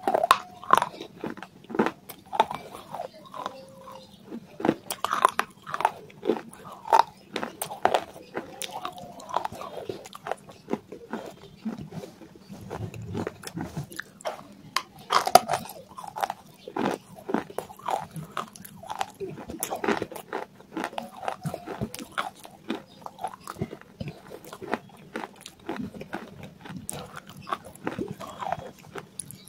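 Close-up crunching and chewing of dry clay pieces: a dense run of irregular sharp crunches as mouthfuls are bitten and chewed.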